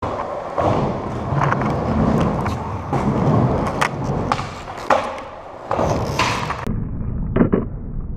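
Skateboard wheels rolling over a concrete skatepark surface, with several sharp clacks of the board hitting the ground. About two-thirds of the way through the sound turns duller and quieter, with one or two more clacks.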